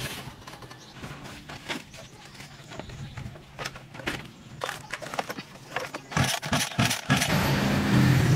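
Irregular knocks, rattles and scrapes of a scrapped child's minibike being dragged out of a pile of rubbish and set down, its metal frame and plastic bodywork clattering. A louder, rougher sound takes over in the last couple of seconds.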